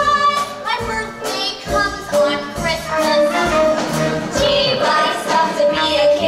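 A group of young musical theatre performers singing a Christmas song over a backing track with a steady beat.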